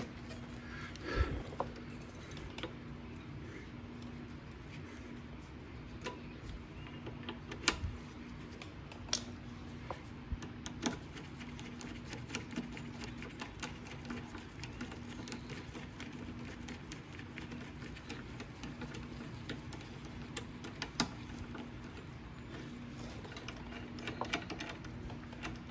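Scattered light metallic clicks and taps of hands working the auto-choke parts on a Briggs & Stratton 190cc mower engine, over a faint steady hum. A quicker run of clicks comes near the end.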